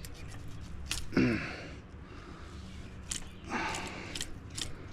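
A few scattered sharp clicks and snips as a landing net's mesh is cut to free a snagged fishing lure, with a brief grunt about a second in.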